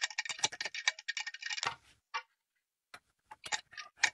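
Wrench clicking and ticking against brass faucet fittings as the male adapters are tightened: a quick run of small metallic clicks for about two seconds, a brief ring, then a few scattered clicks.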